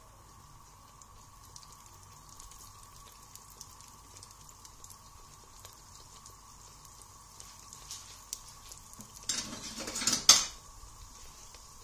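Pieces of yogurt-and-flour dough frying in hot oil, with faint, scattered crackling. About nine seconds in there is a louder burst of sizzling and clatter lasting about a second.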